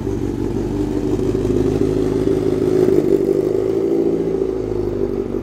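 A motor vehicle's engine running close by, its note rising slightly and getting a little louder about three seconds in, then dipping back.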